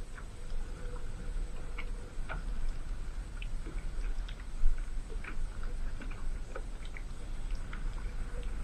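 Small irregular clicks and taps on a plastic fishing kayak over a low steady rumble, with one louder knock about four and a half seconds in.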